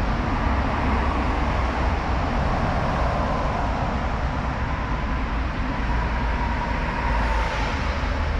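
Sportbike riding at speed: steady wind rush and rumble on the on-board microphone with the engine running, even and unbroken, with a faint steady whine.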